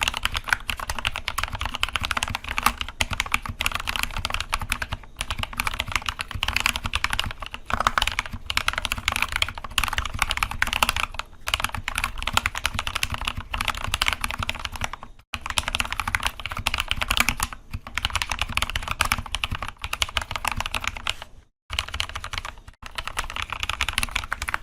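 Anne Pro 2 mechanical keyboard with stem-lubed Gateron Red linear switches and stock stabilizers being typed on fast. It gives a dense, continuous stream of keystroke clacks, with brief pauses about 15 and 21 seconds in.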